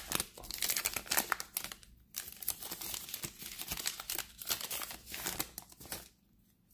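Plastic wrapper of a baseball card pack being torn open and crinkled by hand, in a dense run of crackles that stops near the end.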